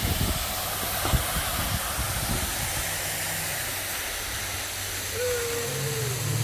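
Steady hiss, with a few low knocks in the first couple of seconds and a sharp click about a second in; a low steady hum comes in near the end.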